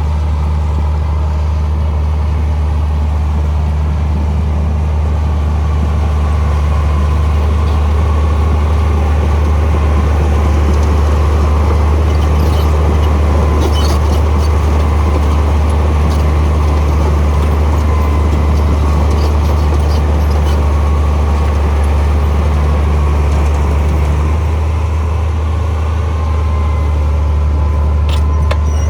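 Heavy diesel earthmoving machinery running steadily under load, a deep engine hum with mechanical rattle over it, and a few light clicks about halfway and again near the end.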